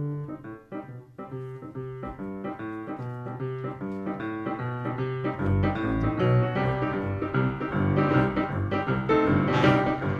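Grand piano playing an instrumental passage of short repeated notes that builds steadily louder. Other instruments of the band fill in the sound near the end.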